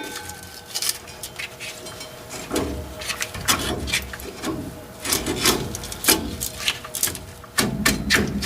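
Irregular clinks, knocks and scraping of metal parts and hand tools being handled, as new U-bolts and their plate are worked into place, over a faint steady hum.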